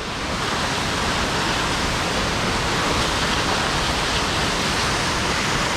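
Steady rushing roar of Falling Water Falls, an even noise with no break, heard from the top of the falls.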